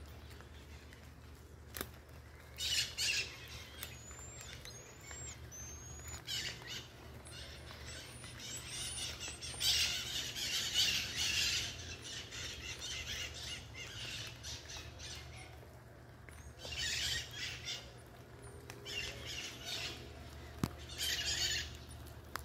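Marmosets calling with high-pitched chirps and chattering squeaks in repeated clusters, including a few short rising whistles.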